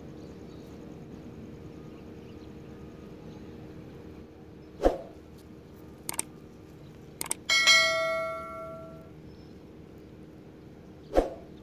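A metal object struck once, ringing out with a bell-like tone that fades over about a second and a half, among a few sharp clicks and knocks, over a steady low hum.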